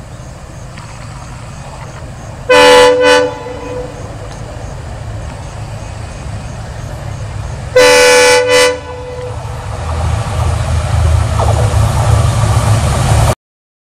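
Diesel locomotive sounding its horn twice, each time a long blast followed by a short one, over the steady rumble of its engine. The engine grows louder near the end, then the sound cuts off suddenly.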